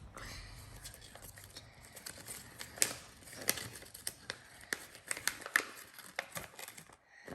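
Toy packaging and its paper instructions being handled, crinkling and rustling with many irregular sharp crackles.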